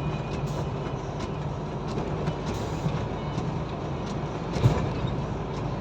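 Steady engine drone and road noise inside a moving truck's cab, with scattered light rattles and one sharper knock about two-thirds of the way through.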